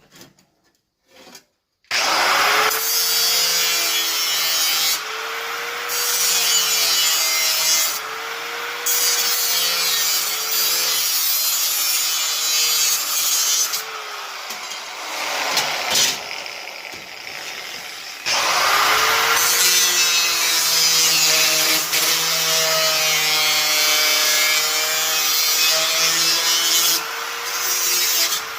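Power tool cutting through sheet-steel patch panel in two long runs, with a short break in the middle. The motor's pitch sags and recovers over and over as the tool bites into the metal.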